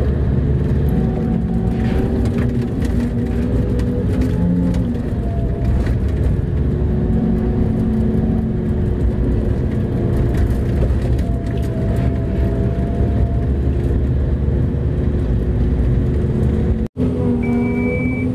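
Mining haul truck's diesel engine running steadily under way, a loud low drone heard from inside the cab. The sound cuts out for an instant near the end.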